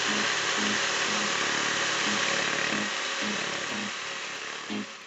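Electric jigsaw running with a steady motor buzz, fading away over the last two seconds.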